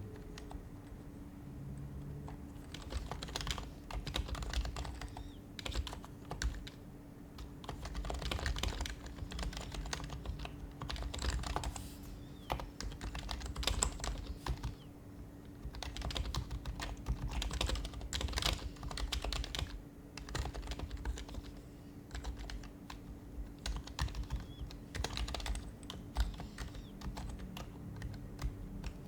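Typing on an HHKB Professional HYBRID Type-S keyboard, whose Topre electrostatic capacitive switches give soft, damped keystrokes. The typing comes in runs of rapid keystrokes broken by short pauses, over a faint steady hum.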